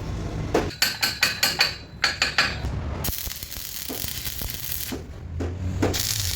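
Several quick ringing metallic clinks and taps, then a steady high hiss that stops briefly and starts again near the end.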